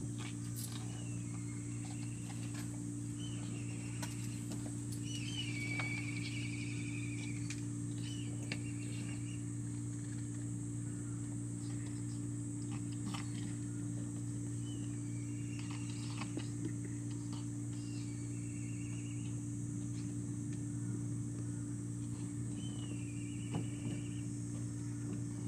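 Steady low mechanical hum, with short high chirping calls from birds breaking in now and then: several phrases in the first half and a few more later.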